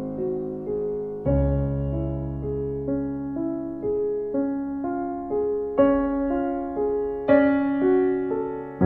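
Slow, gentle solo piano music: notes struck about twice a second and left to ring, over sustained chords that change every second and a half or so.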